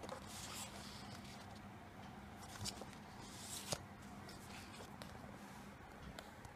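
Paper sheets rustling as they are handled and shifted, in two short rustles, with a couple of small clicks or taps. A faint steady low hum runs underneath.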